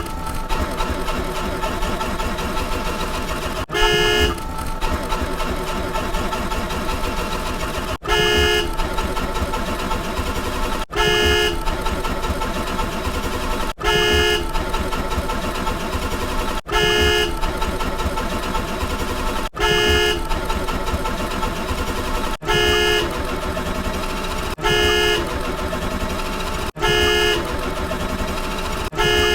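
Edited sound-effect track: a short horn-like toot, repeating about every three seconds, each one right after an abrupt cut, over a continuous busy background with steady tones.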